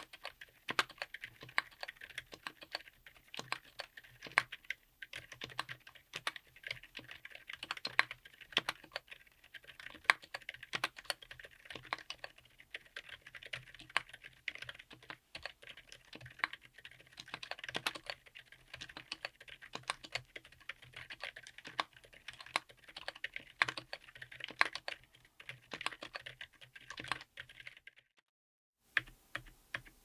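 Fast typing on a mechanical keyboard with Akko Penguin silent tactile switches, MT3-profile PBT keycaps, an FR4 plate and a Tofu60 aluminium case, a dense run of keystrokes. Near the end the typing stops briefly, then single keys are pressed at an even pace.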